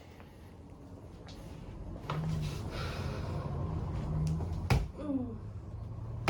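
A single sharp, loud crack from a chiropractic adjustment thrust, followed at once by a short groan from the patient that falls in pitch.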